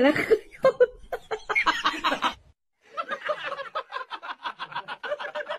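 A voice speaking briefly. After a short break, a person laughs in quick, even pulses.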